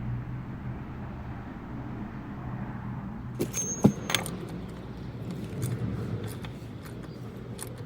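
Clicks and a sharp metallic knock about four seconds in, with scattered tool clicks after, as the oil filter housing is tightened with a filter wrench. A steady low hum runs underneath.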